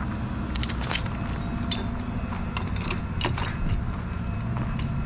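Fishing gear being handled and packed: scattered plastic and metal clicks and knocks over a steady low rumble.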